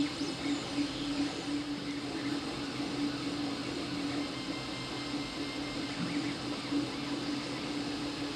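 FDM 3D printer running as it prints the top of a dome-shaped part. Its stepper motors hum steadily with a wavering tone as the print head moves in small circles.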